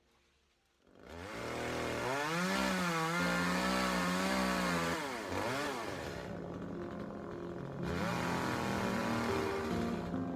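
Chainsaw running hard from about a second in, its engine pitch rising and falling as it is throttled up and down through the cut.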